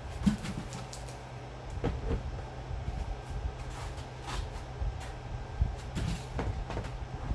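Handling noises from unboxing a laptop: scattered knocks, clicks and light rustles of packaging and parts being moved, over a steady low hum.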